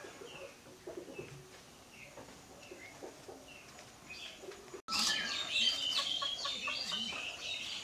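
Birds chirping: a few short, separate chirps at first, then from about five seconds in a louder, busy chorus of many chirps.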